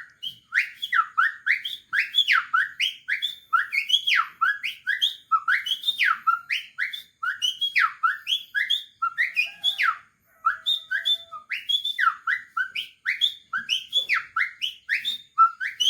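A man whistling a songbird imitation: a fast, continuous run of high notes, each sliding downward, several a second, with a short break about ten seconds in.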